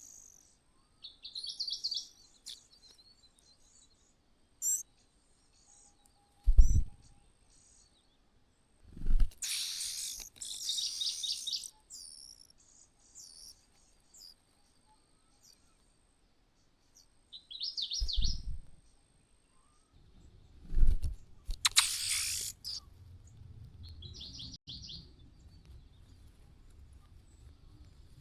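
Birds chirping in short quick trills, three times. Between them come several dull low thumps and two longer bursts of rustling noise.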